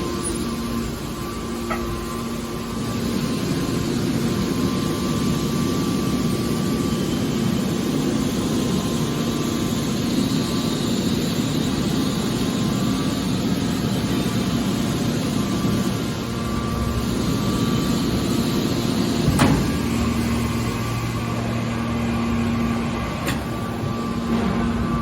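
Automatic metal baler running with a steady machine hum, with a sharp clank about 19 seconds in and a lighter knock a few seconds later.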